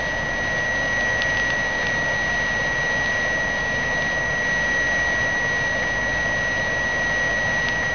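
BioLite CampStove's built-in fan running steadily, blowing air into the charcoal fire, with an even whoosh and a constant high whine.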